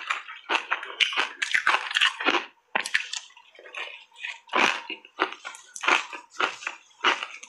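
Close-miked crunching and chewing of refrozen block ice coated in matcha powder: a fast, irregular run of sharp, brittle crunches with brief pauses between bites.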